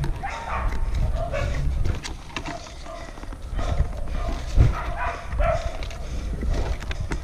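A dog barking over and over in short calls, over the rumble and scuffing of a body-worn action camera being carried, with one heavy thump about halfway through.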